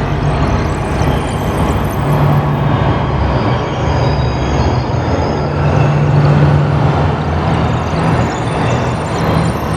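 Electronic ambient sound-effect soundscape: a loud, dense, steady rumbling drone with low held tones underneath and thin high whistling tones coming in about four seconds in.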